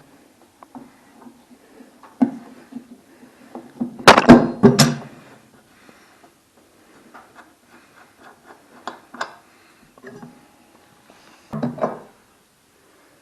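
Handling noise during a washing-machine repair: scattered knocks and clatter, loudest in a cluster of sharp impacts about four seconds in and another shorter cluster near the end.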